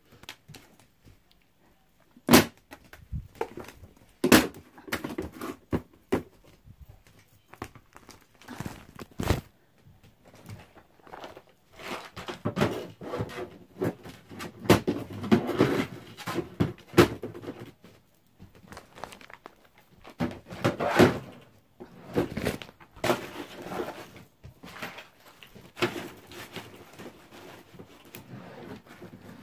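Makeup items and their containers being put away by hand: a scattered run of clicks, knocks and thunks with rustling between them, and what sounds like a drawer being opened and shut.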